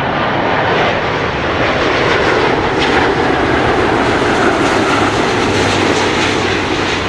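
Airbus A350 on landing approach, its Rolls-Royce Trent XWB turbofans giving a steady rushing jet noise that swells over the first second and holds until it starts to ease off near the end.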